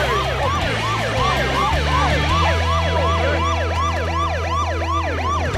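Police car siren in a fast yelp, its pitch rising and falling about three times a second, over sustained low music notes.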